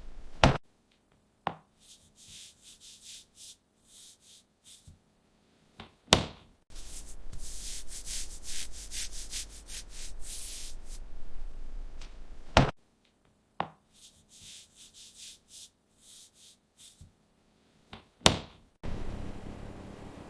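Repeating machine cycle: a sharp knock about every six seconds, with rasping scraping noise between the knocks. Near the end it gives way to a steady hiss.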